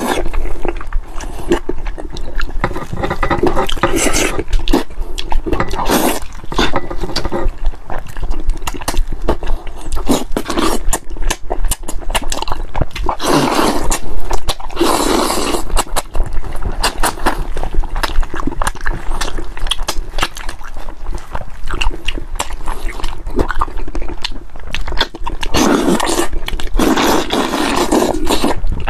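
Close-miked eating sounds: wet chewing, lip smacking and slurping of chicken head and enoki mushrooms in spicy chili sauce, with a few louder slurping surges now and then.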